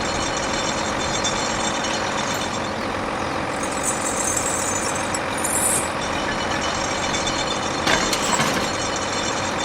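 Mini tractor engine running steadily, with short hisses about four and five and a half seconds in and a brief clatter about eight seconds in.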